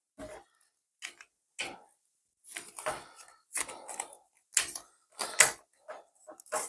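Irregular clicks and scratches from a 3D-printed plastic part being handled and picked at, as bits of stringing and support are cleaned off it.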